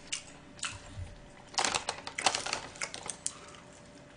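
Chewing a mouthful of gwamegi (half-dried saury) wrapped in gim and blanched seaweed: a run of short, soft wet clicks and crackles, thickest in the middle.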